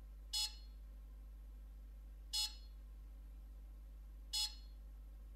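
Lactoscan S ultrasonic milk analyzer beeping its cleaning reminder: three short beeps, one every two seconds. They signal that the analyzer has stood idle long enough that its measuring system must be rinsed with water.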